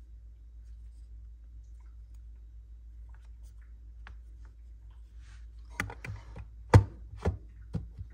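A few faint ticks, then from about six seconds in a run of sharp clicks and taps from Zippo lighters being handled, the loudest near seven seconds, over a low steady hum.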